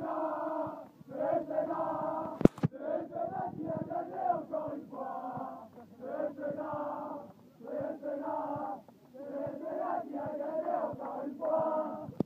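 A football team's victory chant: a group of young men chanting in unison in a huddle, in short repeated phrases with brief pauses between them. A single sharp knock cuts through about two and a half seconds in.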